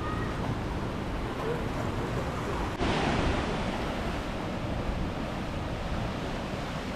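Steady rush of ocean surf with wind buffeting the microphone. The sound jumps abruptly about three seconds in.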